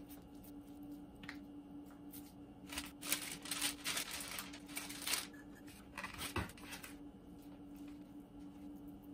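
A sheet of paper rustling and crinkling as it is handled and laid over raw burger patties, in a long burst about three to five seconds in and a shorter one about a second later.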